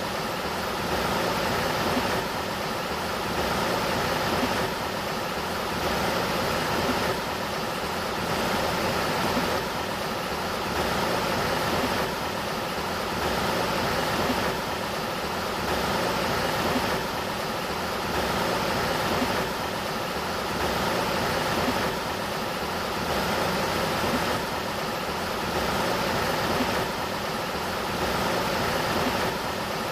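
Sacramento River water flowing: a steady rushing noise with a gentle, regular swell about every two seconds.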